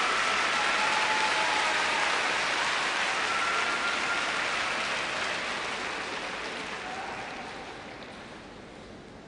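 Arena crowd applauding, the clapping fading away steadily over the second half.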